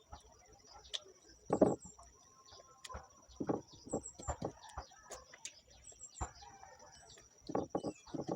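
A chicken clucking a few times among scattered clicks and knocks, with a steady high-pitched whine.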